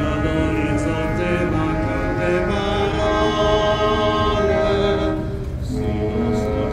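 Naval band playing long held brass chords, with a brief break in the notes about five seconds in.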